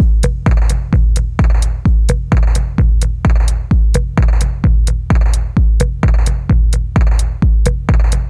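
Background music: an electronic hip-hop beat with heavy, evenly spaced bass kicks and sharp percussion hits.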